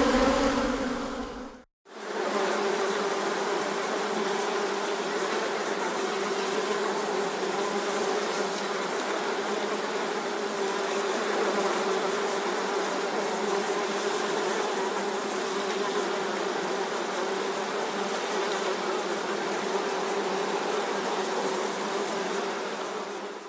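Swarms of honeybees buzzing near their hive, a dense steady hum of many wings. It fades out a couple of seconds in, then after a brief silence a second, lower-pitched swarm recording starts and runs steadily before fading away near the end.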